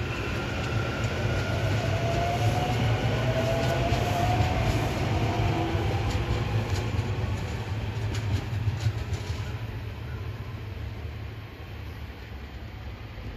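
SEPTA Silverliner IV electric multiple-unit train running past and pulling away. It gives a steady low hum and a motor whine that rises over the first few seconds, with wheels clicking over rail joints. The sound fades in the last few seconds as the train recedes.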